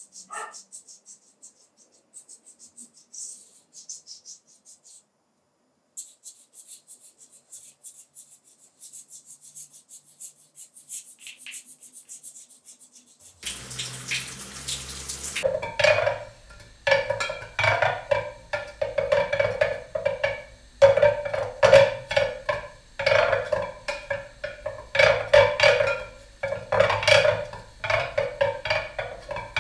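Black chalk scratching on a wall in short strokes. About halfway through, a tap is turned on and water runs. Then comes a loud, uneven run of sharp knocks, each ringing at the same pitch.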